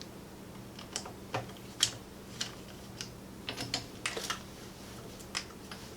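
Irregular small clicks and taps of a screwdriver backing the screws out of a Chinese ATV's handlebar switch housing, with a faint steady hum underneath.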